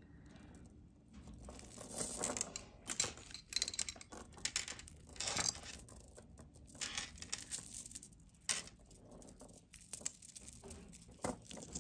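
Strands of pearl beads being gathered up and laid out on a stone tabletop: irregular soft clicks and rustling as the beads knock together and slide across the surface.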